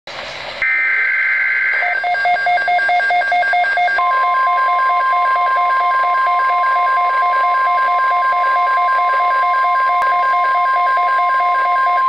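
Midland WR-300 weather radio sounding a NOAA Weather Radio alert for a severe thunderstorm watch. A short burst of SAME digital header tones is followed by the radio's rapidly pulsing alarm beep, and about four seconds in the steady single-pitch NOAA warning alarm tone joins it.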